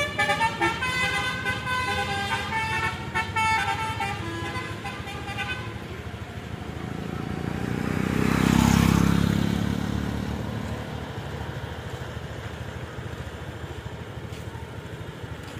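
Telolet bus horn playing a quick melody of stepped musical tones, which stops about five seconds in. A vehicle then passes close by, swelling and fading, loudest a little after halfway, and leaves a steady traffic rumble.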